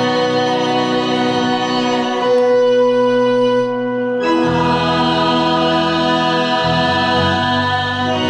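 Music of a congregational hymn: steady, sustained chords that change about two seconds in and again about four seconds in.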